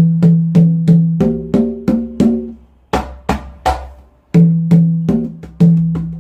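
Handmade JOIZ Percusión congas played by hand in a rhythmic pattern: ringing open tones on the lower drum and the higher drum, with a run of sharper, brighter slaps in the middle and a brief gap about four seconds in.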